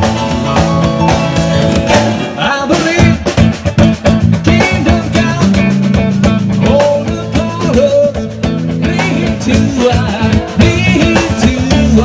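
Rock band music: electric guitar, bass and drums, with pitch-bending melody lines over sustained bass notes.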